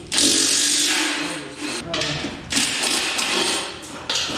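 Handheld power tool, most likely a cordless impact wrench, hammering on the bolts of the stump grinder's cutter wheel in about three bursts, the first the longest.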